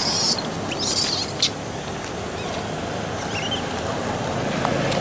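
Steady outdoor background noise, like wind on the microphone, with two short high rustles in the first second and a half and a faint high chirp near the middle.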